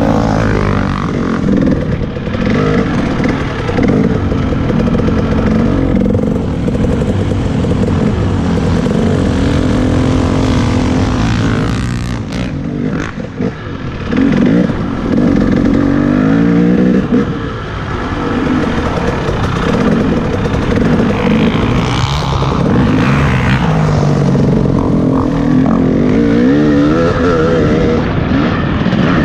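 Off-road motorcycle engine being ridden hard, its pitch rising and falling again and again with the throttle, dropping briefly about twelve seconds in.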